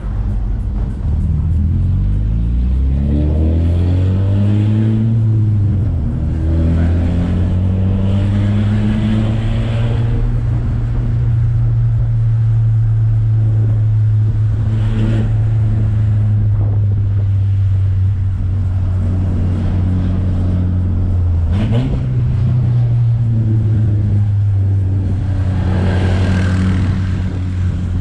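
Volkswagen Santana's AP 2.0 inline-four engine and exhaust rising in revs as the car accelerates over the first few seconds, then running at steady cruising revs. A brief dip and recovery in revs comes about three-quarters of the way through.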